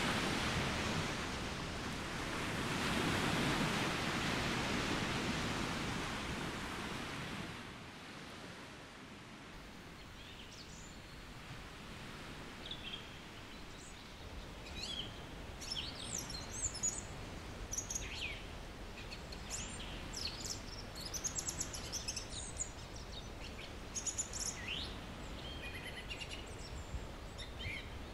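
Surf washing on the shore, a steady rushing noise that swells twice and fades out about eight seconds in. Then songbirds chirping with many quick, high calls over a quiet background.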